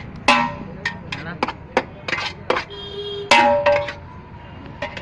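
Steel ladle and lids clanking against large steel cooking pots: a run of sharp clanks roughly every half second, some ringing briefly.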